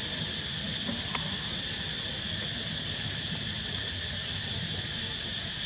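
Steady, high-pitched chorus of insects, with a couple of faint ticks about a second and three seconds in.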